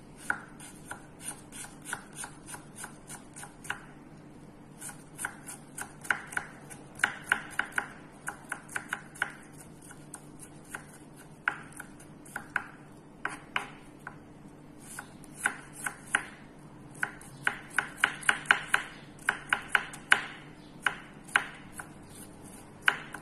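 Chef's knife mincing garlic on a wooden cutting board: quick runs of sharp taps, about four a second, broken by short pauses.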